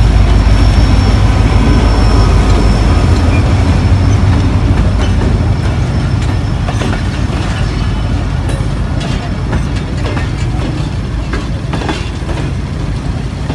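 A passenger train passing close by: the locomotive goes by first with a heavy low rumble, loudest at the start and easing slowly, then the coaches roll past with their wheels clicking over the rail joints.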